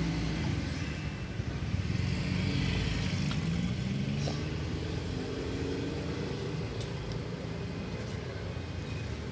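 Motor vehicle engines from passing street traffic over a steady low rumble, one engine note rising about two to three seconds in.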